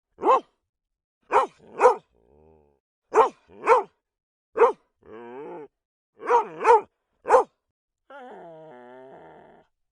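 A dog giving about nine short barks, singly and in pairs, with brief whining moans between them and a longer, wavering whine near the end.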